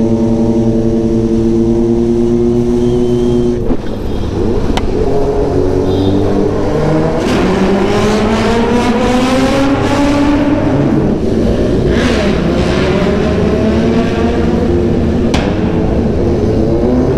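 Inline-four superbike engines, the onboard Kawasaki Z900 and others in the group, running under power. The engine note is steady at first. From about four seconds in, inside a road tunnel, the engine notes rise again and again as the bikes accelerate, very loud and echoing, with a couple of sharp cracks.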